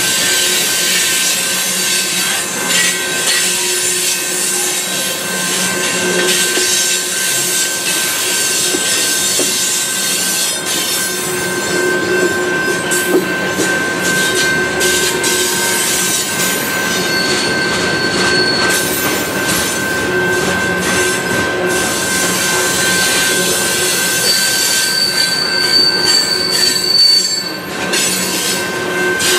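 Freight train tank cars rolling past close by, steel wheels running on the rails with a steady high wheel squeal. Brief, higher squeals come about two-thirds of the way in and again near the end.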